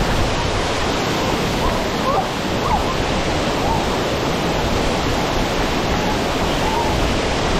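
Loud, steady rush of water from Rutledge Falls, a wide tiered cascade pouring over rock ledges into the pool, heard up close from water level.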